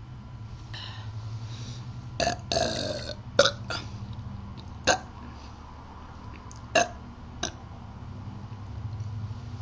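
A person burping: a drawn-out low belch in the first few seconds, then a string of short, sharp sounds, the loudest about three and a half seconds in, with another low belch building near the end.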